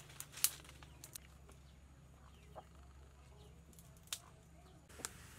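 Dry twigs snapping and clattering as they are broken and laid into a small clay stove: a few sharp cracks spread through, the loudest about half a second in, over a low steady hum.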